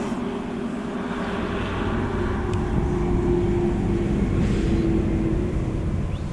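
A motor vehicle's engine droning past over a low rumble, growing louder toward the middle and easing off near the end.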